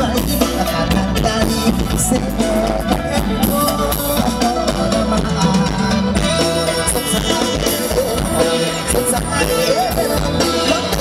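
Live Thai Isan luk thung band music played loud over a PA: a steady drum-kit beat and bass under a melody line with singing.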